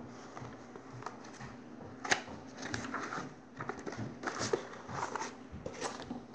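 Paper sheets being handled and leafed through by hand: irregular rustling with crisp flicks and taps, the sharpest about two seconds in and a cluster near the end.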